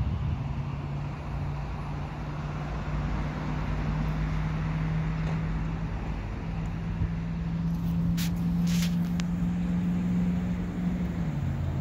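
A steady low mechanical hum over a broad background wash, of the kind an idling vehicle makes. The hum drops slightly in pitch near the end, and a few brief crackles come about eight seconds in.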